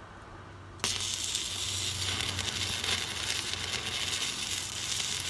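Stick welding arc struck about a second in, then crackling and sizzling steadily as a bead is run.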